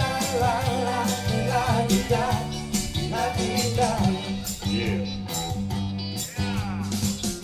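Amplified music: a singer's voice over a bass line and a steady drum beat.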